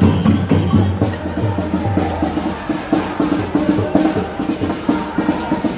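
Music with a steady, quick percussion beat of sharp knocking strokes over lower sustained tones.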